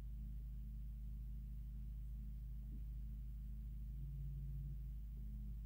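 Low steady hum with a few steady tones above it: the two oscillator test signals driving an old CRT TV's horizontal and vertical deflection. One tone swells for a moment about four seconds in.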